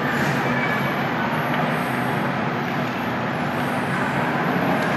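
Airport terminal ambience: a steady low mechanical hum under an even wash of hall noise, with no distinct events.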